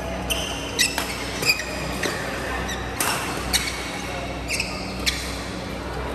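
Badminton rally: sharp racket strikes on the shuttlecock, roughly one every half second to second, mixed with short high squeaks of court shoes on the mat, over a steady low hum in a large hall.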